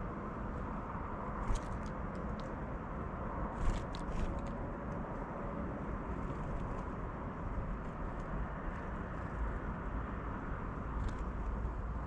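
Steady low outdoor background rumble, with a few short sharp clicks: one about one and a half seconds in, a small cluster around four seconds, and one near the end.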